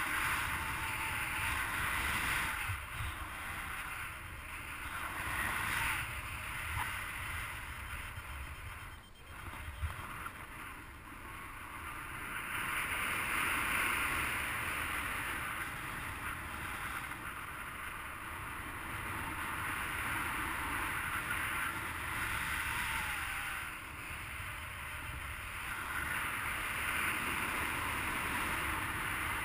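Wind rushing over the microphone of a paraglider in flight, swelling and easing in waves every few seconds.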